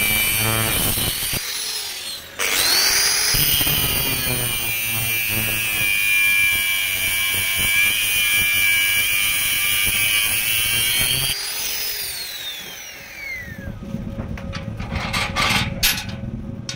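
Angle grinder with an abrasive cut-off disc cutting through a steel piece clamped in a vise: a steady high whine with a gritty grinding noise. About eleven seconds in it is switched off and winds down with a falling whine. A few sharp knocks and clatter follow near the end.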